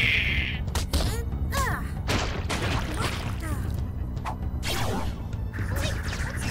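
Cartoon action soundtrack: background music under quick whooshes and impact sound effects, with an electric crackling zap starting near the end.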